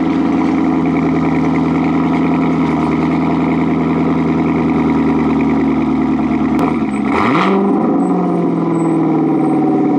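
Chevrolet Corvette C7 Grand Sport's 6.2-litre LT1 V8, heard through an AWE Touring Edition cat-back exhaust, running at a steady fast idle just after a cold start. About seven seconds in the note wavers briefly, and then the idle slowly begins to drop.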